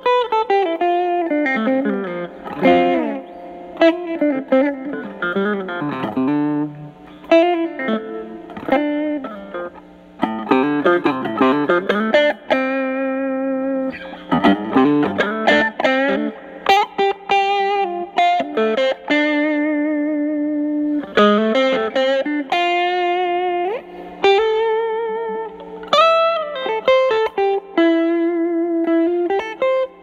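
Telecaster played through a Fender Studio Reverb combo amp with its 8-inch Celestion speaker, set to its cleaned-up tone. It plays improvised blues lead lines of mostly single notes, with string bends, held notes with vibrato and brief pauses between phrases.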